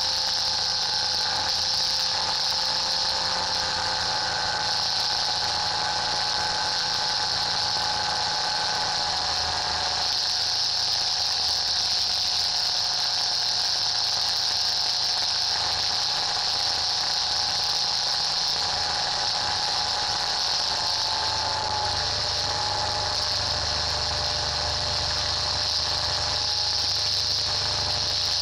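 Rotax 582 two-stroke engine of a Chinook ultralight running steadily at cruise power, heard from a wing-strut camera under a steady hiss of wind with a thin, steady whine on top.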